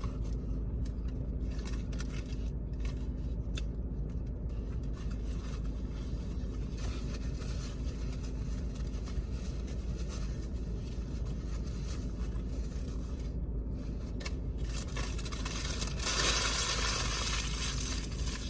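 Light rustling and scraping over a steady low hum, with a louder hissing rush about two seconds before the end.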